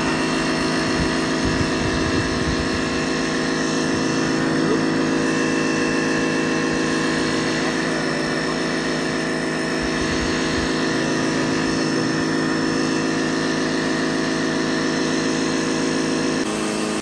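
Ryobi 1800 W electric pressure washer running, a steady, even hum with no change in pitch.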